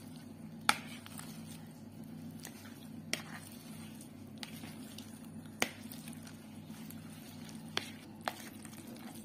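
Hand masher pressing boiled vegetables in a bowl: soft squishing with a few sharp knocks of the masher against the bowl, the loudest about a second in. A steady low hum runs underneath.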